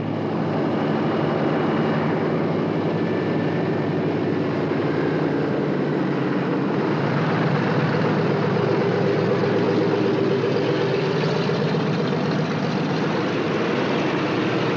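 Douglas DC-3's twin radial piston engines running steadily at low power while taxiing, heard from inside the cabin.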